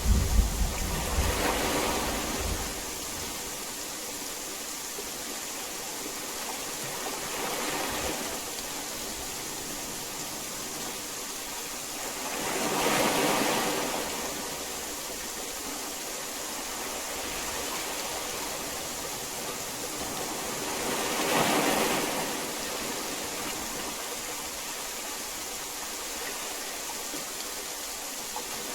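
Heavy rain falling in a steady hiss that swells louder several times, most strongly about halfway through and again later on. A low rumble of thunder fades out in the first two seconds.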